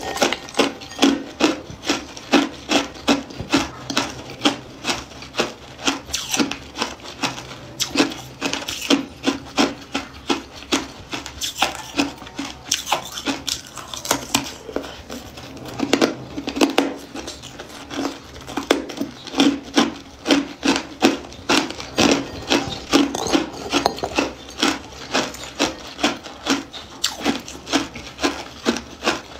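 Hard clear ice being bitten and chewed, a steady run of sharp crunches at about two a second.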